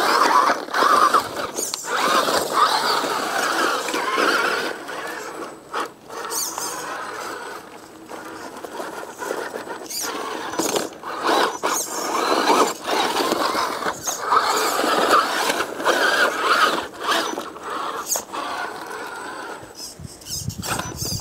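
Small electric RC rock crawler's motor and gear drivetrain whining in stop-start bursts as it works up a rock line, with sharp clicks and knocks of tyres and chassis against stone.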